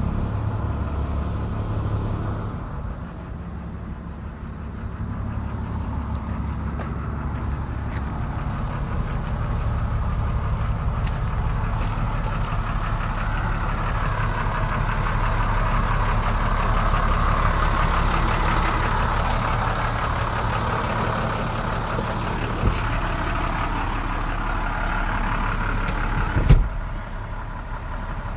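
International DT466 inline-six diesel engine idling steadily, with one sharp knock near the end.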